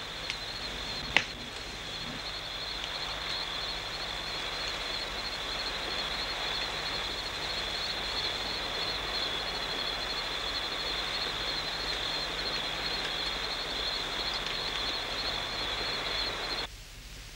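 Night-time crickets chirring in a steady, high, fast-pulsing trill over a soft hiss, with a single sharp click about a second in; the sound cuts off abruptly near the end.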